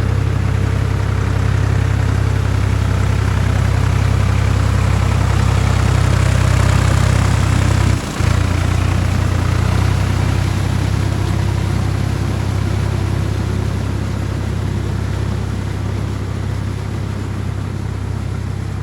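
Solis 5220 tractor's diesel engine running steadily with a deep hum, working a rotavator in mud. It grows louder until about seven seconds in, breaks off for a moment near eight seconds, then slowly fades.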